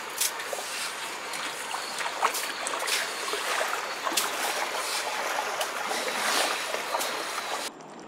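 Water running and splashing, with many small sharp splashes over a steady rush; it cuts off suddenly near the end.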